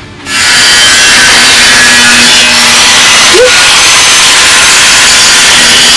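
Corded handheld power tool cutting through sheet steel: a loud, steady cutting noise that starts just after the beginning and holds without a break.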